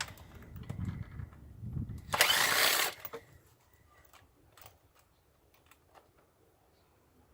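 Power drill run in one short burst about two seconds in, after clicks and knocks of tools working on metal. Then mostly quiet, with a few light taps.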